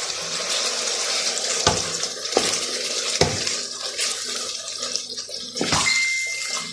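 Chili con carne sizzling in a frying pan while a wooden spatula stirs it, knocking against the pan four times. A short steady high beep sounds near the end.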